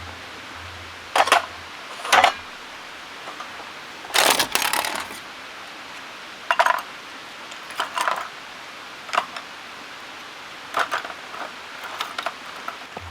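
Small hard objects, metal by the sound of it, being handled and set down: a dozen or so separate sharp clinks at uneven intervals, with a longer rattling cluster about four seconds in.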